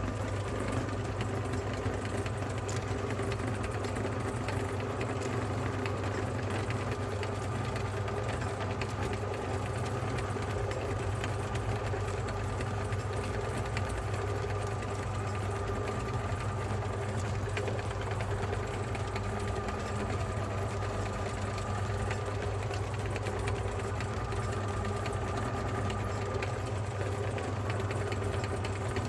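Electric meat grinder's motor running steadily, a continuous even hum.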